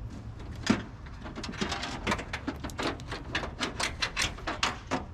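A sharp clack, then a quick, irregular run of clicks and rattles: pressure-washing equipment being handled on the rig.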